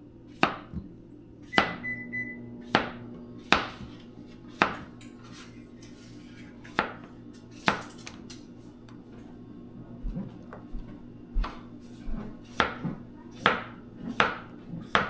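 A kitchen knife slicing cucumbers into rounds on a cutting board: sharp chops, about one a second at first and a little quicker in the second half.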